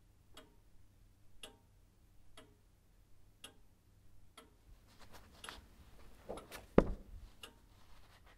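A clock ticking quietly about once a second, while a hardbound book is handled: its cover opens with a thud about seven seconds in, followed by the rustle of paper pages being turned.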